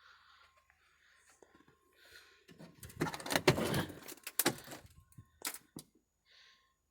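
A burst of rattling and knocking about three seconds in, then a few sharp clicks or knocks.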